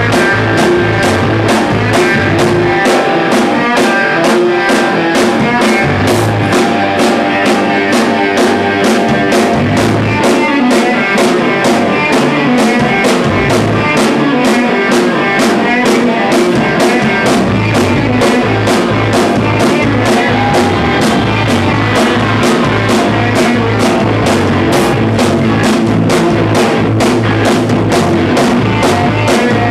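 Post-hardcore rock band playing live: electric guitars, bass and a drum kit keeping a fast, steady beat. The bass drops out briefly a few times in the first half.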